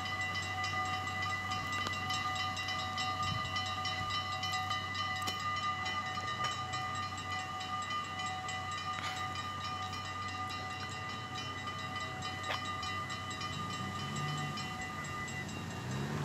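Railway level-crossing warning bell ringing rapidly and continuously as the barriers come down, falling silent about a second before the end once they are fully lowered.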